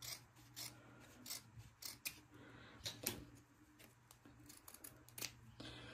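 Scissors snipping through pink felt, trimming a piece down to size: a series of short, crisp snips at irregular intervals.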